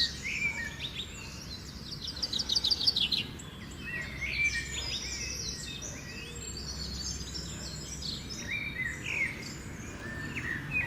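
Birds chirping and singing, with short whistled notes and a quick trill of repeated notes about two to three seconds in, over a steady low background rumble.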